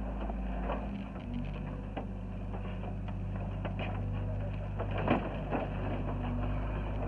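Hyundai 60 mini excavator's diesel engine running steadily while its bucket tears into a house's wooden framing and debris. Irregular cracks and crunches of breaking wood and debris come over the engine, the loudest about five seconds in.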